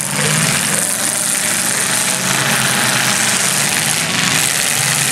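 Demolition derby car engines running steadily, with a loud hissing noise over them.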